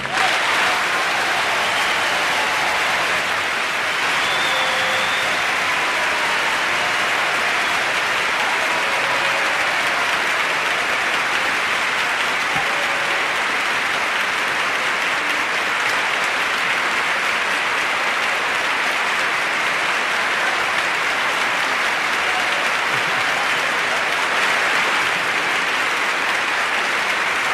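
Large theatre audience applauding steadily and at length, an ovation that never lets up.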